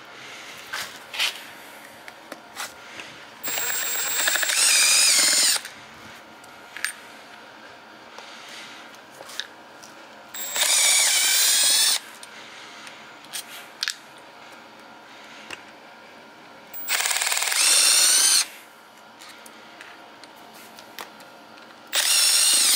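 Milwaukee Fuel cordless impact driver running in four bursts of one to two seconds each as it backs out the clutch-side cover screws of a vintage Honda mini engine, with a few light clicks between the bursts.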